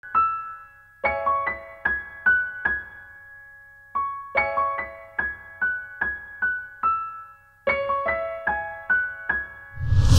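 Intro music on a piano-like keyboard: short phrases of struck notes and chords that fade quickly, with two pauses between phrases. A loud rushing swell comes in just before the end.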